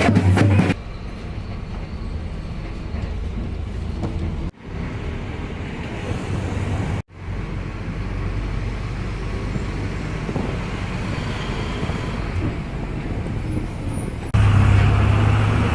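Urban outdoor ambience in short spliced recordings: a steady low rumble of vehicle traffic, with hard cuts between takes. A louder, deeper engine rumble comes in near the end.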